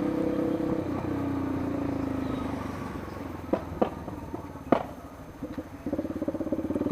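Yamaha Lander 250's single-cylinder engine running at low revs, its note easing down over the first couple of seconds. A few sharp clicks come in the middle, and the engine note turns louder and pulsing near the end.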